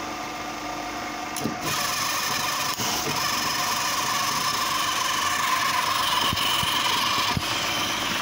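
Electric motor driving a high-pressure triple-plunger (HTP) washer pump, running steadily. About one and a half seconds in the spray gun opens, and a loud hiss of the high-pressure water jet joins in and carries on; the pressure is very strong.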